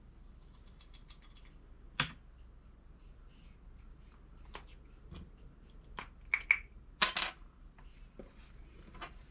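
Scattered small clicks, taps and knocks of shotshell reloading parts and tools being handled on a bench, with a sharper knock about two seconds in and a quick run of clicks and rattles a little past the middle.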